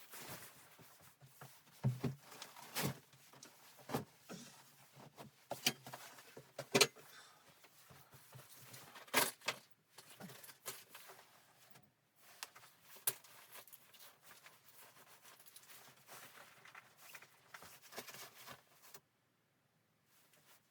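Irregular knocks, clunks and rustling, like things being handled and set down, stopping abruptly near the end.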